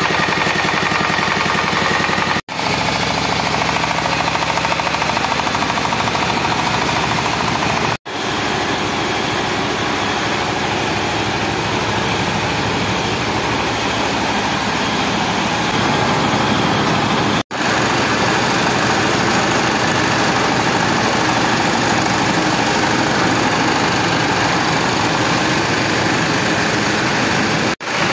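A small single-cylinder stationary engine and the belt-driven rice-milling machinery it powers run steadily together, making a loud, dense mechanical din. It is broken by four momentary dropouts.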